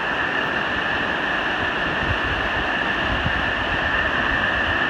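Whitewater rapids rushing steadily over a rock ledge, an even hiss of churning water with a low, uneven rumble underneath.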